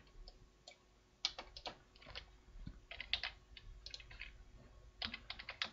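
Faint computer keyboard keystrokes, tapped in small irregular clusters of a few keys each, as shortcuts are pressed while posing a 3D character.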